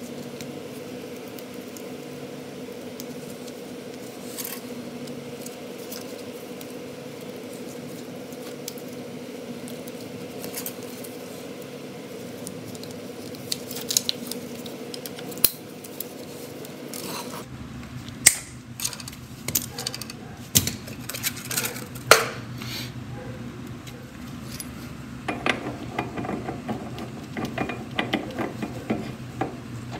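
Small metal clicks and snips of pliers twisting and cutting steel safety wire on the hub bolts, over a steady hum. About halfway through the hum changes, and sharper metal clicks and clinks follow as metal parts are handled and fitted at the wheel hub.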